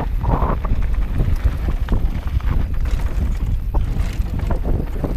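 Mountain bike rolling fast down a gravel trail: a heavy rumble of wind buffeting the camera microphone, with tyre crunch and a steady patter of rattling clicks and knocks from the bike over the loose surface.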